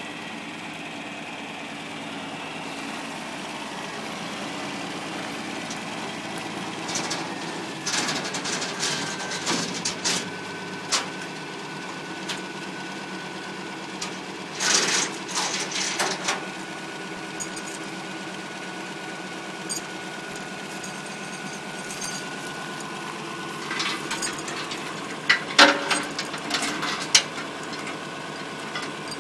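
An engine idling steadily, with several short spells of metallic clanking and rattling from a chain being hooked up, the loudest of them near the end.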